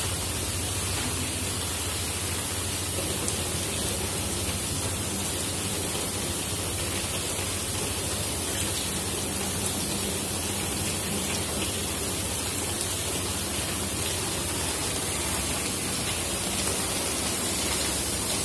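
Steady rushing hiss of water flowing through chilled-water pipework, over a constant low hum from the plant room's pumps, as the line's handwheel valve is opened.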